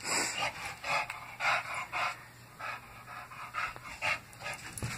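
Bulldog panting: a regular run of short, breathy pants, about two a second.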